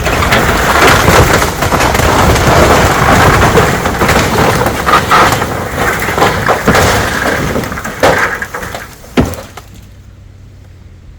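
A section of an old wooden barn collapsing: timbers cracking and splintering and boards crashing down for about nine seconds. It ends with one heavy thud, then dies away.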